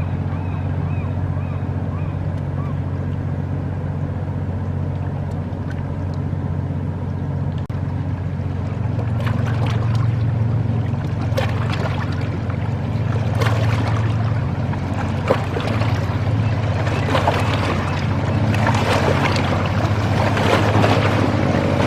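Boat engine running with a steady low hum. From about halfway through, a gusty rushing noise grows louder over it.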